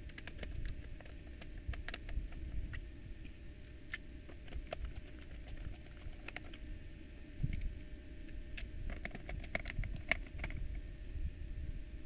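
Screws being driven with a small Phillips screwdriver into the plastic bottom casing of a Yamaha M4 mixer: irregular light clicks and ticks of the driver and screw, bunched more closely near the end, over low rumbling from the case being handled.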